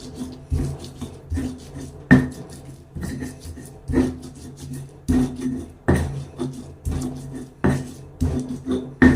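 Knife strokes on a wooden cutting board, roughly one sharp knock a second with some rubbing between, over background music.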